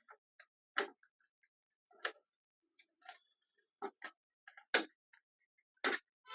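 Scattered sharp clicks and taps of small parts being handled and fitted back into place inside a mini desktop PC, about six separate clicks with silence between, the loudest two in the second half.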